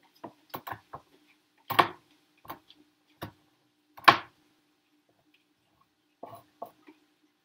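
Chef's knife chopping dried ginger on a plastic cutting board: irregular sharp knocks of the blade striking the board. Two louder chops come about two and four seconds in, then a pause and three lighter taps near the end.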